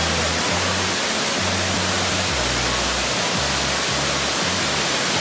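Steady rushing of a waterfall cascading over rock ledges, with background music's low bass notes underneath.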